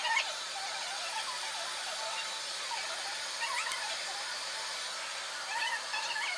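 Plastic highlighting cap squeaking as a metal hook needle pulls strands of hair through its holes, in a few short clusters of squeaks over a steady faint hiss.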